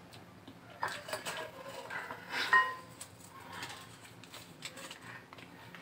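Quiet scattered clicks and rustles of hands handling marshmallows by a glass bowl, with a short squeak about two and a half seconds in.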